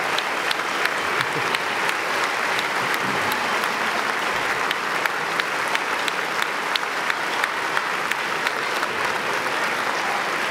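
Large audience applauding steadily: dense, even clapping that neither builds nor fades.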